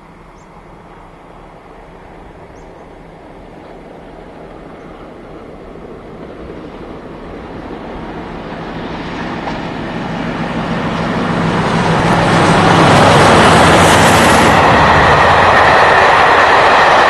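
Diesel-hauled passenger train approaching, its sound growing steadily louder for about twelve seconds. The coaches then pass close by with a loud, steady rush of wheels on the rails.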